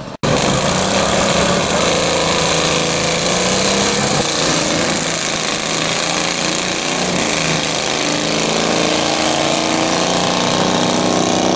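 Small engines of modified racing lawn tractors running hard at full throttle: a loud, steady, raspy drone whose pitch climbs gently in the second half as they accelerate.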